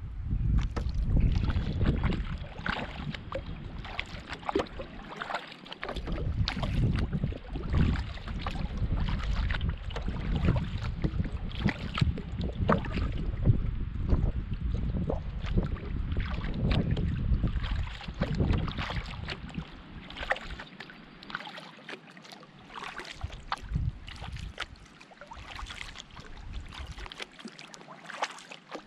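Canoe paddling: irregular splashes and drips of water from the paddle strokes, with small knocks. Wind rumbles on the microphone, heavier for the first two-thirds and easing after about twenty seconds.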